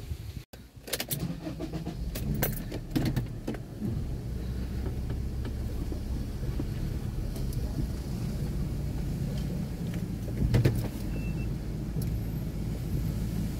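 Clicks and knocks of getting out of a car, a door being opened and handled, in the first few seconds, then a steady low rumble with one more knock about ten seconds in.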